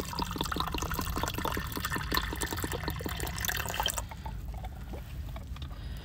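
Water pattering and trickling, a dense run of small splashes that thins out about two thirds of the way through, over a steady low rumble.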